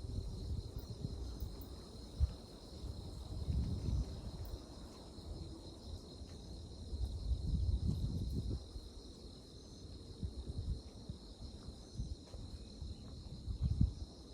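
A steady high chorus of insects chirring outdoors before dawn, with irregular low rumbles of wind on the microphone surging and fading, strongest about four and eight seconds in and just before the end.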